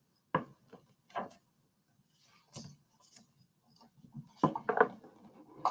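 Soft, scattered clicks and rustles from a hardback picture book being handled as a page is turned, with a short cluster of small noises a little past halfway.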